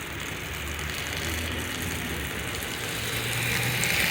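Steady rain falling, with a motor vehicle's engine running low underneath it.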